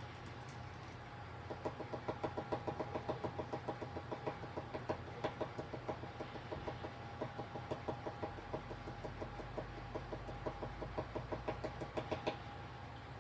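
Ballpoint pen stippling, its tip tapping dots onto paper laid on a glass desk in a quick even series of about six taps a second. The tapping starts about a second and a half in and stops shortly before the end.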